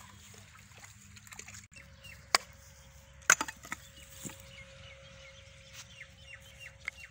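Two sharp knocks about a second apart, then lighter taps, as bricks and sticks of firewood are set down and knocked together on the ground. Birds chirp faintly in the background.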